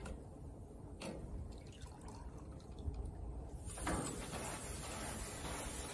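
Water-soaked pad of a grill brush pressed onto hot gas-grill grates, hissing and sizzling with steam from about two-thirds of the way in, after a quieter stretch of water sounds as the pad is wetted in a bowl of water.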